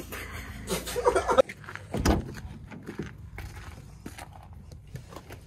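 Handling sounds in a car's interior: a heavy door-like thump about two seconds in, then scattered knocks and rustling as things are moved around on the back seat.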